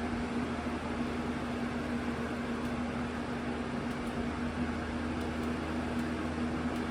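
CoolMaster (Aerospeed) 20-inch box fan, model PBX100, running steadily on medium speed: an even rush of air over a low, constant motor hum. On medium it sounds like it's on high.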